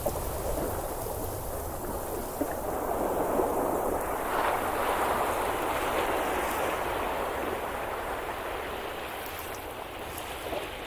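Continuous rushing of rain and water, a steady noise that swells louder about four seconds in and eases off toward the end.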